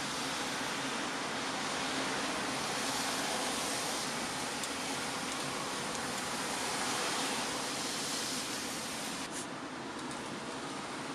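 Steady hiss of falling rain, thinning a little about nine seconds in, with a few faint ticks near the end.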